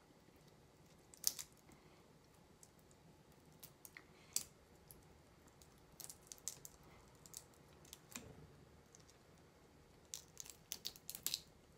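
Faint, scattered small clicks and crackles of a raw shrimp's shell and legs being peeled apart by hand. There is a sharper click about a second in, another around four seconds, and a quick run of clicks near the end.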